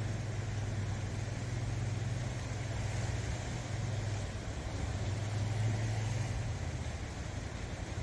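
Sea waves washing over rocks, with a steady low engine hum over them that fades away about six and a half seconds in.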